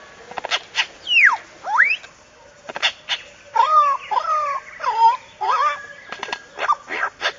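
An animal calling: a long whistle-like call that slides down in pitch, then one that slides up, followed by a run of short wavering calls, with sharp clicks between them.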